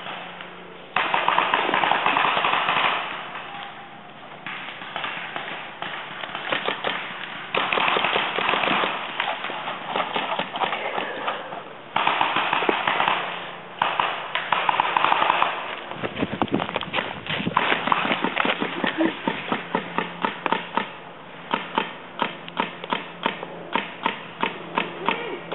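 Paintball markers firing rapid strings of shots, in several loud bursts of a second or two. Near the end they give way to separate pops, two or three a second.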